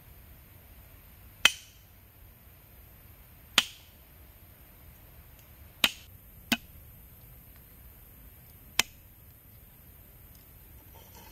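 Cleaver blade striking a thick wooden chopping block five times, single sharp knocks a couple of seconds apart, two of them close together in the middle, each with a short ring.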